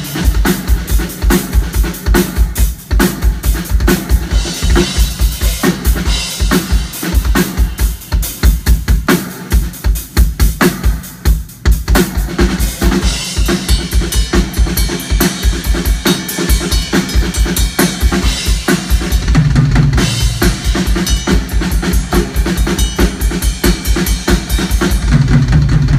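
Acoustic drum kit played live, fast and hard: rapid bass drum beats under snare hits and cymbals. Low bass notes sound briefly about two-thirds of the way through and again near the end.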